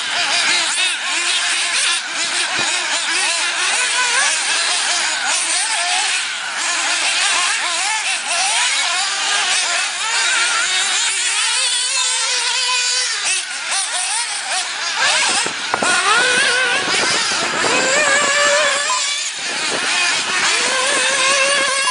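Several 1/8-scale nitro RC buggy engines running in a race, a high-pitched buzzing that rises and falls with throttle as the cars accelerate, brake and pass, several engines overlapping.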